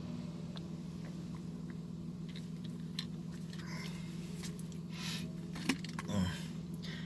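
Steady low drone of a car cabin while driving, with scattered clicks and short crunching noises of someone chewing, loudest about five to six seconds in.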